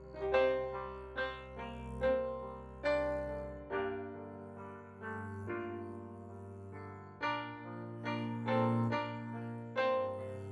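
Slow, gentle piano music: single notes struck roughly once a second over held bass notes, with the bass changing about four seconds in.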